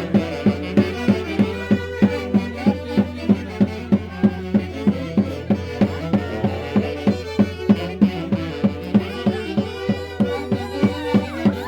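Santiago dance music from the central Peruvian Andes: a violin-led melody over a steady drum beat of about three strokes a second.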